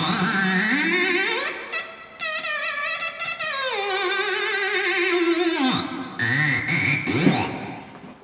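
Homemade theremin played by hand at its pitch antenna: a single wavering tone with vibrato that slides down in pitch through the middle, breaks off about six seconds in, then swoops up and down again.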